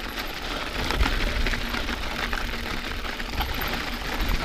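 Mountain bike rolling and bumping down a packed-snow trail: tyre noise on the snow with many small rattles and knocks from the bike, over a low rumble.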